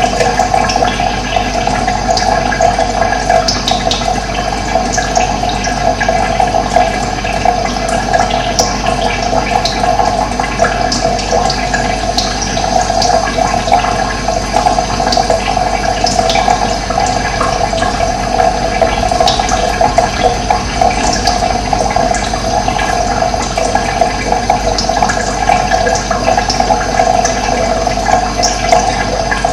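Running water, a steady rushing flow.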